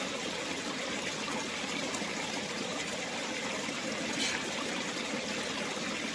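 Steady rush of running water from a stream, with a faint click about four seconds in.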